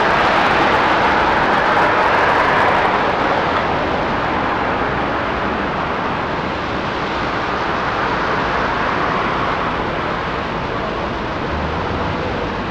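Street traffic noise: a steady rushing of cars on the road, louder for the first few seconds and then easing off slightly.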